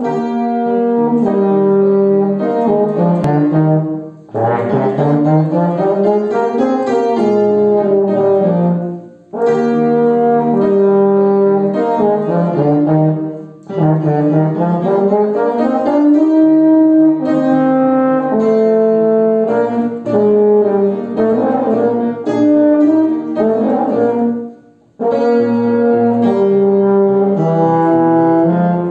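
An upright-belled valved brass horn playing a slow melody over upright piano accompaniment, pausing briefly between phrases every few seconds.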